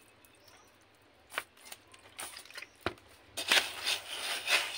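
Roasted chickpeas clicking and rattling as a slotted steel ladle stirs them in a plastic basin, mixing in a poured liquid. A few scattered clicks at first, then a dense rattling from about three and a half seconds in.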